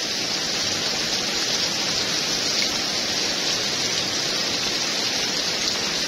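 Heavy rain falling steadily in a storm, a dense even hiss of drops.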